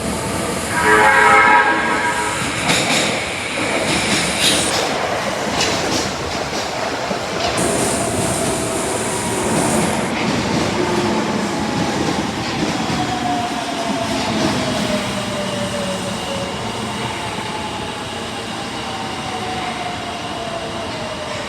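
Door chime of an Osaka Metro Tanimachi Line 22 series subway car (car 22619, whose chime makes an abnormal sound) sounding briefly about a second in, followed by a few clicks. The train then runs with steady rumble and a tone that slowly falls in pitch.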